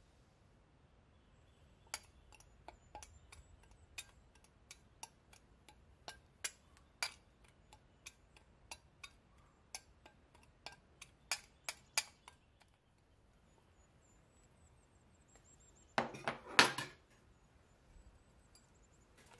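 Metal spoon stirring ground spices in a small glass bowl, clinking sharply and irregularly against the glass for about ten seconds. Near the end comes one short, louder clatter.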